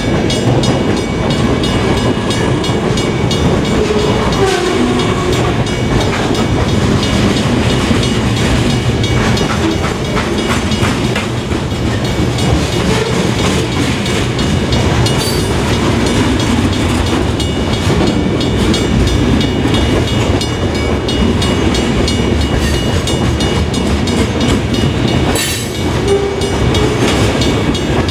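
Loaded centerbeam freight cars rolling past, their wheels clacking over the rails, while the crossing's cast-iron WRRS mechanical bell rings with steady, rapid strokes.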